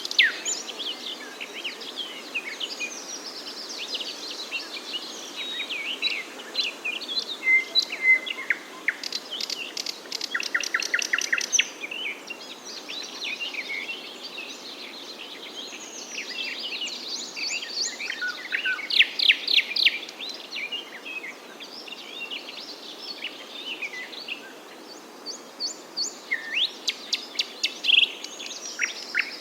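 Several songbirds chirping and singing over one another, over a steady background hiss. Fast runs of rapidly repeated notes stand out three times: about a third of the way in, around two-thirds in, and near the end.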